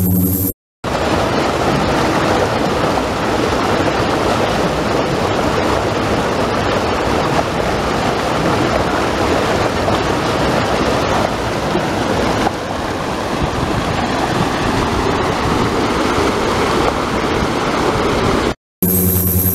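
Sea surf surging and breaking against a concrete seawall and wave-breaking blocks, a continuous loud rush of water. A machine hum is heard for about half a second at the start, then cut off abruptly.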